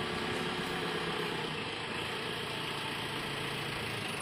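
An engine idling steadily, with a low even hum.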